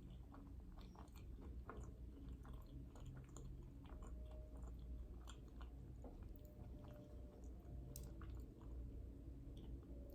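A person chewing and biting food close to the microphone, with many small irregular mouth clicks over a steady low hum.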